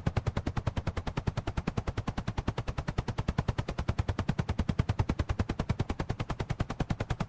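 Helicopter rotor blades chopping steadily, a rapid even beat of about eleven pulses a second, heard without engine noise.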